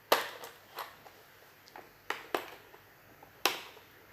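Hard plastic toy case being handled and forced open: about five sharp plastic clicks and knocks, irregularly spaced.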